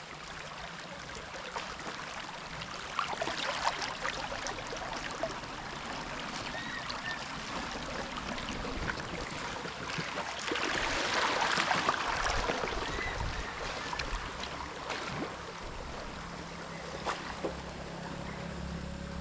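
Stream water rushing and splashing around a slow-moving raft, with scattered small knocks. The water is louder for a few seconds a little past the middle.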